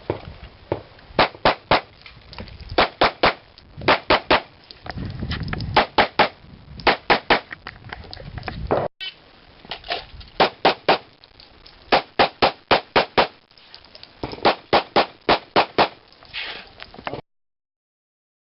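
Pistol shots fired in rapid strings, mostly two to four shots at a time with short pauses between groups, as in a timed practical-pistol stage.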